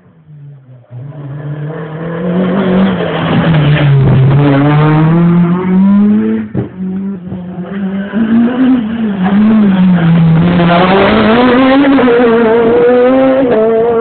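Rally car engine revving hard, the pitch climbing and dropping again and again through gear changes and lifts of the throttle. It grows loud from about a second in and stays loud, with a single sharp crack partway through.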